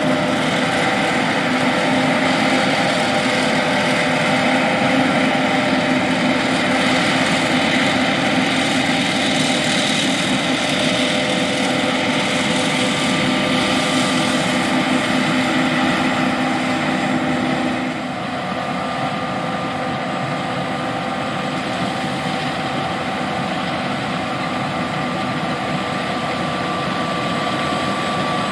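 John Deere S780 combine harvester running steadily while harvesting soybeans: its diesel engine and threshing machinery make a continuous hum with several steady tones. About two-thirds of the way through, the sound drops a little in level and its tones shift, then carries on steadily.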